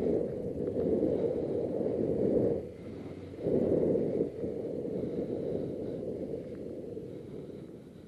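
Suzuki GS500E motorcycle running at low speed with wind noise, heard muffled from a microphone inside the rider's helmet. It drops away briefly about three seconds in, picks up again, then fades as the bike slows to a stop.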